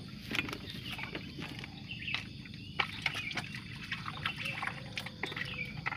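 Wet groundbait being crumbled by hand in a plastic bowl: soft wet squelches and scattered light clicks, with small splashes and trickles as bits drop into the water.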